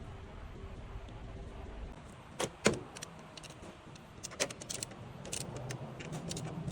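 A run of sharp clicks and knocks: two louder knocks about two and a half seconds in, then many quicker light clicks toward the end, over a faint low hum.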